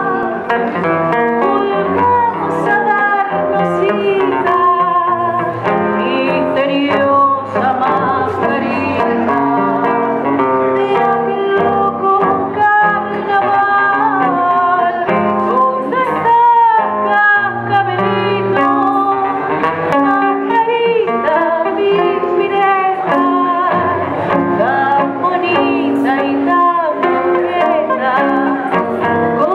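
A woman singing a melody into a microphone, accompanied by a plucked acoustic guitar, in a live performance.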